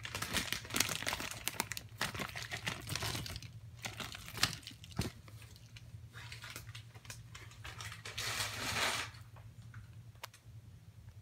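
Handling noise: irregular crackling clicks and rustling, densest over the first three seconds, with a loud dense rustle about eight seconds in, then quieter.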